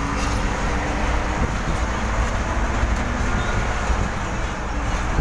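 Vehicle engine and road noise heard from inside the cabin while driving at steady speed: a constant low rumble with a faint engine hum over it.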